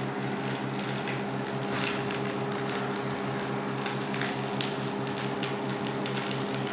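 Steady electrical appliance hum made of several held tones, with a low buzz that pulses rapidly. A few faint light clicks sound over it.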